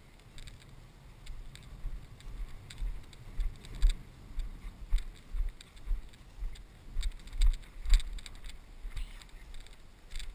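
Footsteps of a person walking through long grass: a regular run of low thumps about two a second, with rustling and clicks, picked up by a body-worn action camera. The thumps grow stronger about a second and a half in.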